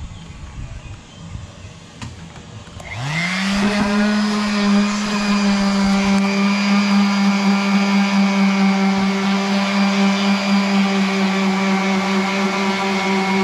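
An electric motor starts about three seconds in, winding up quickly in pitch, then runs at a steady hum with a whining edge.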